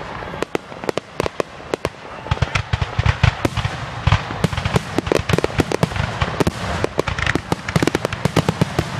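Fireworks going off in a dense, irregular barrage of bangs and sharp crackling pops, thickening about two seconds in.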